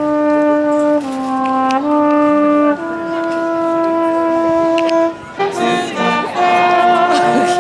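A brass instrument, trumpet-like, playing a slow melody of long held notes over loudspeakers. About five and a half seconds in the music grows fuller, with more parts joining.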